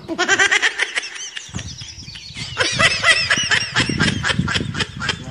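A flock of small birds chirping loudly in rapid overlapping calls, pausing briefly about two seconds in and then starting up again.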